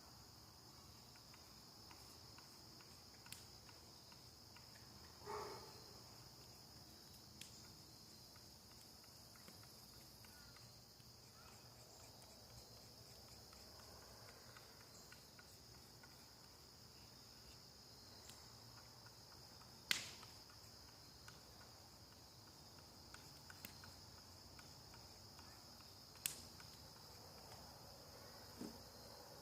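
Crickets trilling steadily at night, with a few scattered sharp clicks or snaps, the loudest about two-thirds of the way through.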